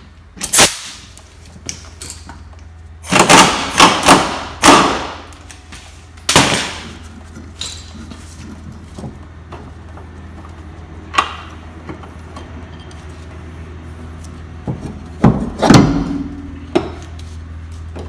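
Sharp metal knocks and clanks from tools and a Honda Civic's rear trailing arm and drum brake assembly as it is worked loose and lifted off: one near the start, a quick cluster of three or four a few seconds in, and another cluster near the end, one of them ringing briefly.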